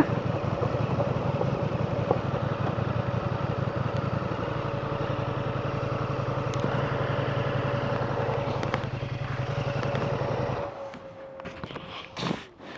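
Ducati Multistrada motorcycle engine idling steadily, then switched off about eleven seconds in. A few faint knocks follow.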